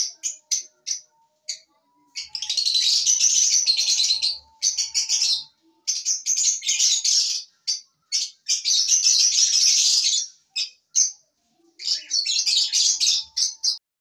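A group of Fischer's lovebirds chattering: rapid, shrill chirping in runs of one to two seconds, with single chirps between. The chatter stops just before the end.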